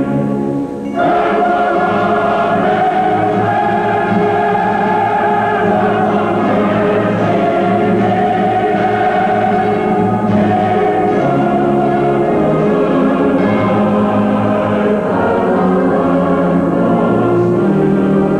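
Recorded choral music: a choir singing in sustained chords, with a brief drop in loudness about a second in.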